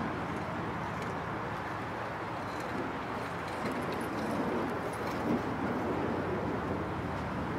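Steady city street ambience: a continuous hum of road traffic with no single event standing out.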